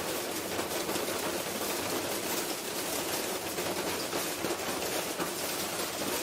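Washing machine spinning with a brick loose in its drum: a steady, dense clattering and rattling of the brick and broken parts as the machine tears itself apart.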